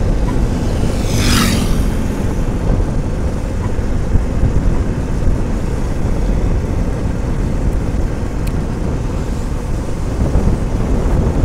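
Ride on a motorcycle carrying three people: steady wind rush on the microphone over the engine running, with a brief whooshing rush about a second in.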